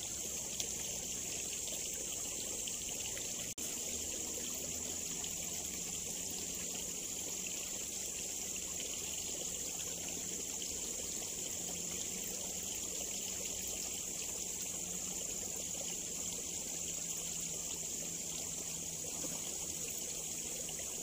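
Water trickling steadily through a small ditch, with a constant high hiss over it.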